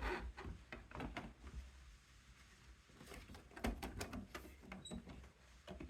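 Light clicks and knocks of 3D-printed plastic case parts being handled and fitted together, as the top piece with its fan is set onto the case.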